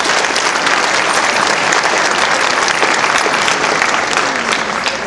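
Audience applauding, a dense steady clapping that thins out near the end into a few scattered claps.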